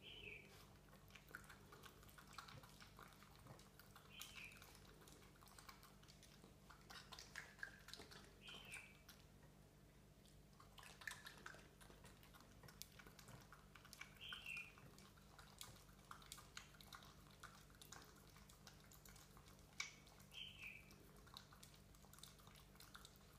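Faint wet clicking and dabbing of a raccoon eating porridge from a plastic bowl, paws dipping into the porridge and mouth lapping it up. A short, high, falling chirp recurs every four to six seconds.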